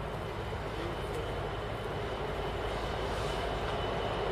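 Steady engine rumble that slowly grows louder.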